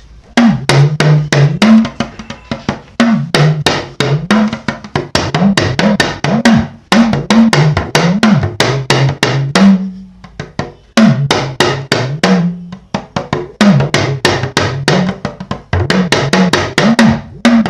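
Small Yoruba hourglass talking drum struck rapidly with a curved stick, its pitch bending up and down between strokes as the lacing is squeezed, drumming out the tones of a spoken proverb. The strokes come in phrases with short breaks about seven and ten seconds in.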